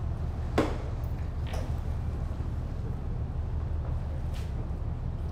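Steady low engine rumble, with a sharp knock about half a second in and two fainter knocks later.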